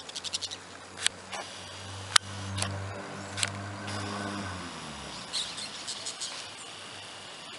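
A steady engine drone that drops in pitch and fades out about five seconds in, with short runs of rapid, chattering bird calls at the start and again near the end, and a few sharp clicks.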